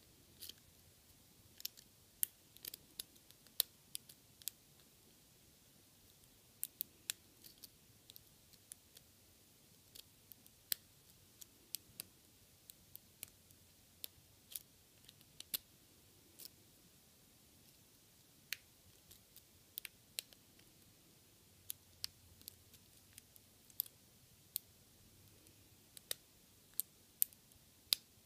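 Lock pick working the pin stack of a brass Yale 110/40 pin-tumbler padlock: light, sharp metallic clicks and ticks coming irregularly, a few every second, as pins are lifted and set.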